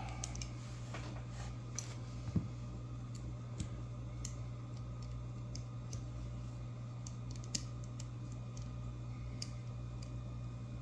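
Small, irregular metallic clicks and ticks of a tool working at the C-clip on the back of an American 1100 lock cylinder, with a sharper click a couple of seconds in. The clip is stuck and not coming off. A steady low hum runs underneath.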